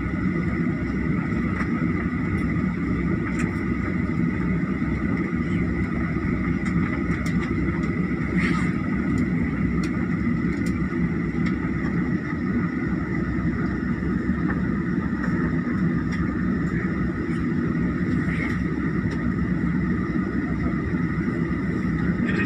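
Jet airliner engines at taxi power heard from inside the cabin: a steady low rumble with a high whine on top, level throughout as the plane taxis.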